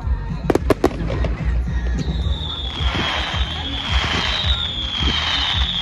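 Fireworks display: a few sharp bangs, then from about two seconds in a long high whistle falling slowly in pitch over crackling and repeated low thumps of shells being launched.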